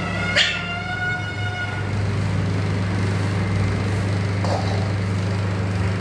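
A pet animal's short, sharp call about half a second in, and a fainter one later, over a steady low hum.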